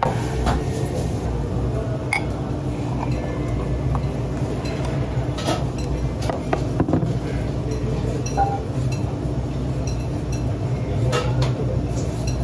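Eating-house ambience: a steady low hum with a few short, sharp clinks of a glass and dishes on a table.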